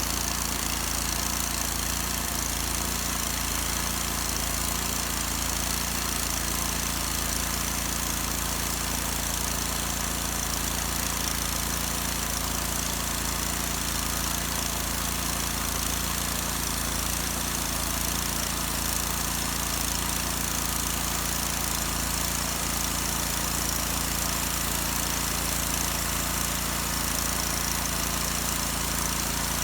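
An engine running steadily at one speed, with an even hiss over it and no change in pitch or loudness.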